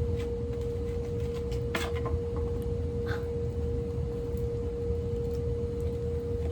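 A steady single-pitched hum over a low rumble, with a few faint clicks and rustles.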